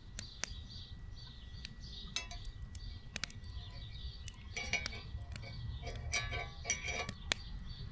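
Light clinks and sharp clicks of a pan and utensils being handled over a campfire, with several short rattling bursts in the second half.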